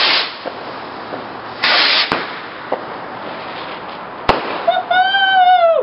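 Firework rockets going off: a hissing rush as a rocket launches, a second rush about two seconds in, and sharp bangs soon after and at about four seconds. Near the end comes a high, drawn-out tone that arches and then dips.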